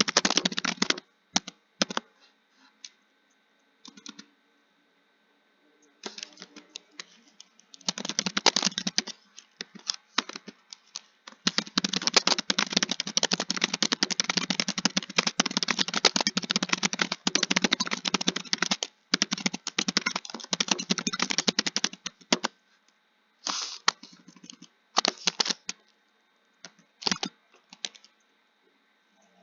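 Computer keyboard typing: fast runs of key clicks in bursts, with short pauses between runs and a few isolated keystrokes near the end.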